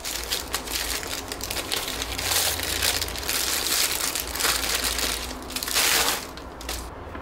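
Crinkling and rustling of a thin plastic bakery bag as it is handled and pulled off a loaf of bread, loudest in two spells around the middle and near the end.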